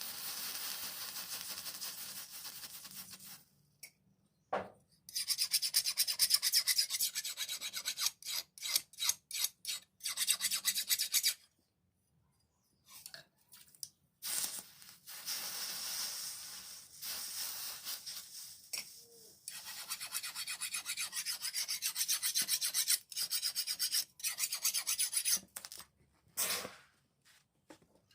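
Hand filing of a steel blade forged from car leaf spring: runs of rasping file strokes with short pauses between them.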